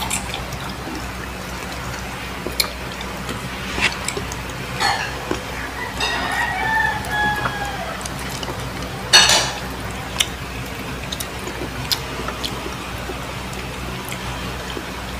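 Mukbang eating sounds: chewing and lip smacks from people eating rice and pork with their hands, heard as scattered short clicks over a steady low hum, with one loud sharp smack about nine seconds in.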